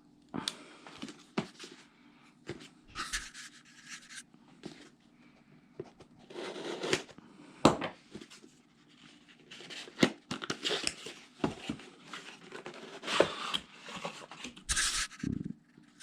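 A cardboard shipping box being opened and its packing handled: irregular rustling, scraping and tearing of cardboard and paper, with several sharp knocks and clicks.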